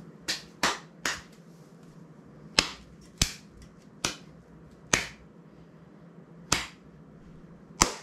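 Sharp plastic-and-metal clicks of a YC Onion Nut Q1 quick-release clip being snapped in and out, about nine clicks at uneven intervals, several close together near the start.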